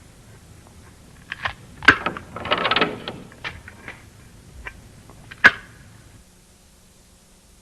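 Sparse electronic soundtrack: scattered sharp clicks and knocks, the loudest about two seconds in and again near five and a half seconds, with a short buzzing pitched sound in between. From about six seconds on only a faint hiss and low hum remain.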